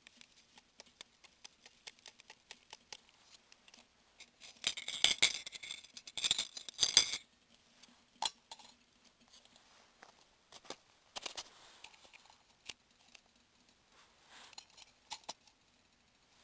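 Handling noise from camping gear: scattered small clicks and ticks, with a loud couple of seconds of crinkling packaging from about four and a half to seven seconds in.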